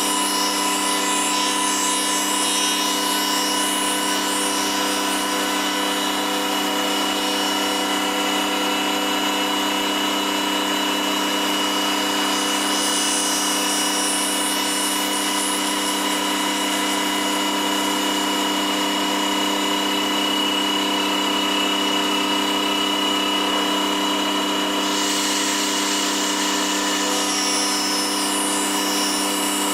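CNC router spindle running at steady speed with a woodworking cutter machining wood: a steady multi-tone whine under the hiss of the cut, which grows brighter about 25 seconds in.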